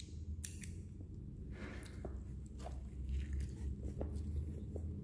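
A man biting into and chewing a breaded chicken sandwich with lettuce and bacon, giving soft, scattered crunching and mouth sounds over a low steady hum.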